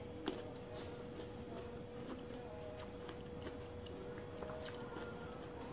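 Close-up mouth sounds of someone eating fresh fruit: irregular wet clicks and smacks while chewing, with one sharper click about a third of a second in. A steady faint hum runs underneath.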